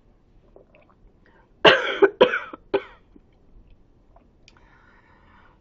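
A woman coughing three times in quick succession about a second and a half in, the first cough the longest.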